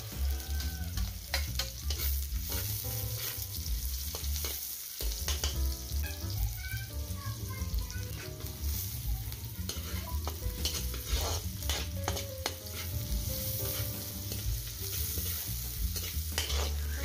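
Sliced red onions and garlic sizzling in oil in a large steel wok, stirred with a metal spatula that scrapes and clicks against the pan.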